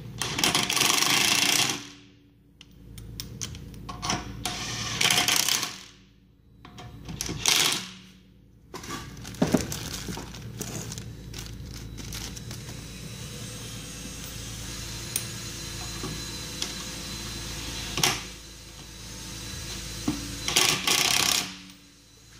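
Electric drill boring into a seized wheel lug bolt on a car hub, running in several loud bursts with a steadier, quieter stretch of running in between.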